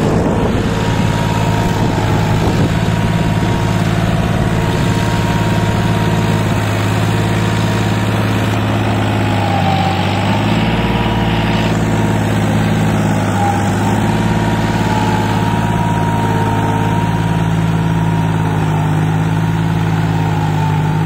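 John Deere 5042 D tractor's three-cylinder diesel engine running steadily under load while pulling a ten-tine cultivator through sandy soil. The engine note dips briefly about ten seconds in and again a few seconds later.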